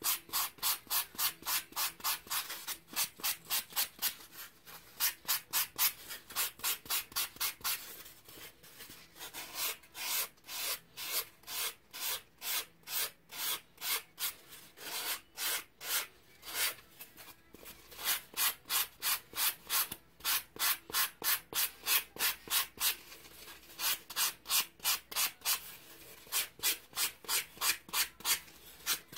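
3M sanding sponge rubbed back and forth along a pink doll-leg core piece, about two to three quick strokes a second, with a couple of short pauses.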